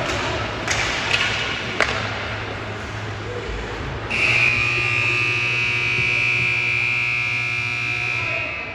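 Ice-hockey arena buzzer sounding one long, steady, loud blast that starts about four seconds in and lasts about four and a half seconds. A few sharp knocks come before it.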